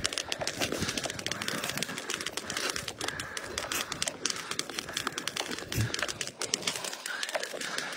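Ice skate blades scraping and ticking over thin, clear lake ice, with short chirping, bird-like tones from the ice itself (singing ice) recurring throughout. A brief low knock comes about six seconds in.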